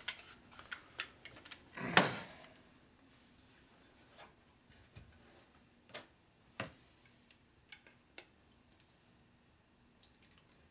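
Handling noise of hand tools and an engine part: one heavier thump about two seconds in, then sparse light metallic clicks and taps.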